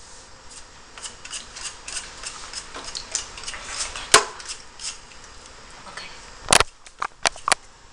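A Chinese yam (shen yao) being peeled, with short scraping strokes of the blade across the skin, two or three a second. They are followed by a sharp knock and a few lighter clicks near the end.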